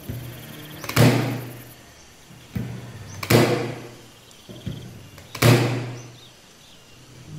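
Corded electric staple-nail gun (Modern M30F-U) firing U staples into a wooden block three times, about two seconds apart. Each shot is a sharp bang with a brief low hum, and there are lighter clicks between shots. The staples are not going fully into the wood.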